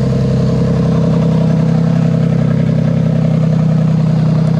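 Toyota JZ-series straight-six idling steadily, test-run on a freshly wired ECUMaster Black engine management harness.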